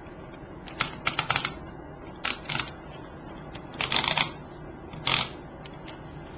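Paper and cardstock being handled: four short bursts of crinkling and rustling.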